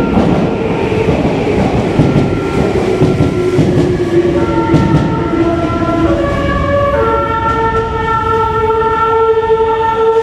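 Meitetsu electric train running into a station with a rumbling noise, then sounding its musical horn from about four seconds in: a few short notes stepping in pitch, ending on one long held note.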